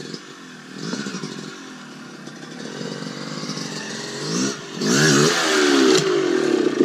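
Two-stroke Yamaha dirt bike engine coming closer at low revs, then revved hard several times, its pitch rising and falling, as the rider wheelies the front up to pivot the bike round. It gets much louder about five seconds in.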